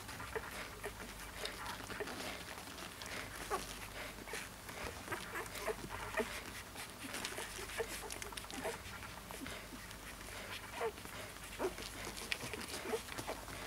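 Newborn Siberian husky puppies giving short squeaks and whimpers at irregular intervals, with small clicks and rustling between them.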